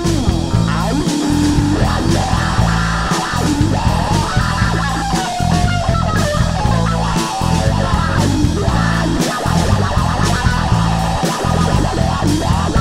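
Rock music with electric guitar, bass guitar and a steady drum beat.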